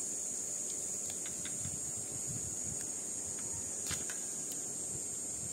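Steady high-pitched hiss under faint rustling and soft clicks of gloved hands and metal dissecting forceps working the skin off a frog specimen, with one sharper click about four seconds in.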